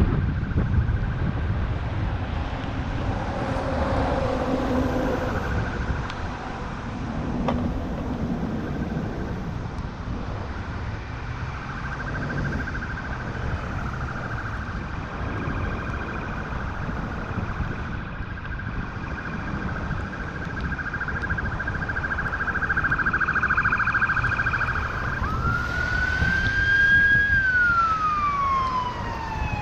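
Emergency vehicle siren, first a steady high tone that gets louder, then a wail that rises, slowly falls and starts to rise again near the end, over a constant low rumble of wind and traffic.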